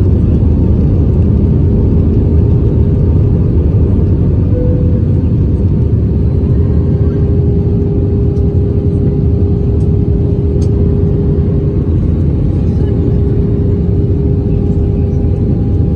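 Cabin noise inside an Airbus A320-family airliner on approach with its flaps extended: a steady, loud rumble of engines and airflow. A steady hum joins about six seconds in.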